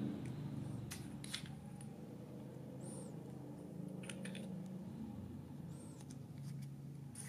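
Faint handling clicks and small squeaks from a Boya BY-M1DM lavalier microphone's battery housing as its knurled cap is turned and its plugs are fitted, a few scattered clicks over a faint low hum.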